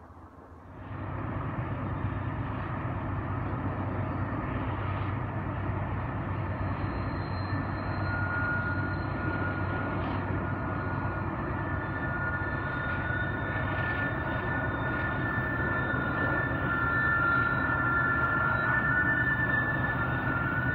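Freight train with diesel locomotives running around the curve: a steady rumble and engine hum that slowly grows louder. From about 8 seconds in, a high steady squeal of steel wheels on the tight curve joins it and gets stronger.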